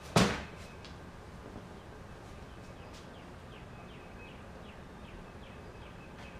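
A single sharp knock, like a part or tool being put down hard, just after the start; it is the loudest sound. After it a bird gives a run of short, high chirps that drop in pitch, a couple each second, faint against steady background hum.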